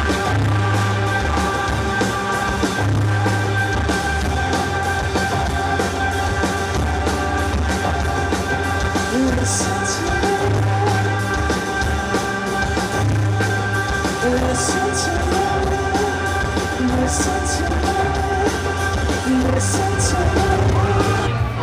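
Rock music playing: sustained chords over a pulsing bass line and drums, with some singing.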